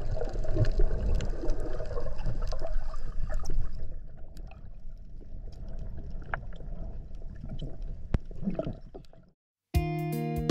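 Underwater sound picked up by a camera below the surface on a reef dive: a dense low rush of moving water with crackling and clicks, loud for the first few seconds and then quieter. It cuts off just before the end, and plucked guitar music begins.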